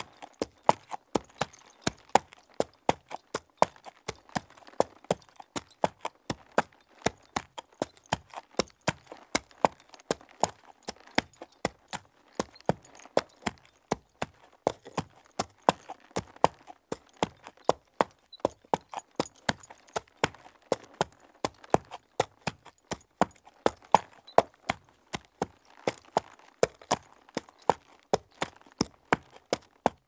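A horse walking on dirt: its hooves strike the ground in a steady, even run of dull thuds, about three a second.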